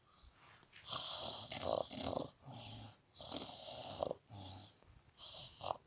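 Snoring: three loud, hissing snores about two seconds apart, each followed by a softer, lower breath.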